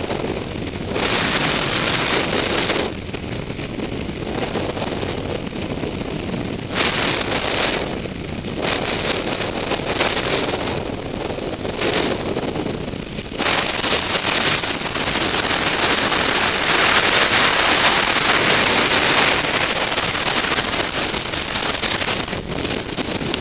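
Freefall wind rushing over a helmet-mounted camera's microphone: a loud, even rush of noise that surges louder and falls back every few seconds as the skydiver turns, strongest in the last third.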